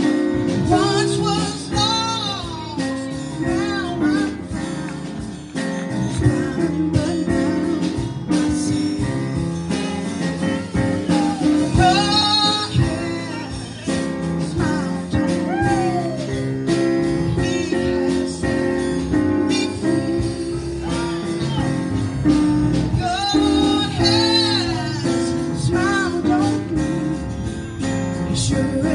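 Live church praise band playing, with drum kit, keyboard, electric and acoustic guitars and a steady beat, while a woman sings into a microphone in several phrases over it.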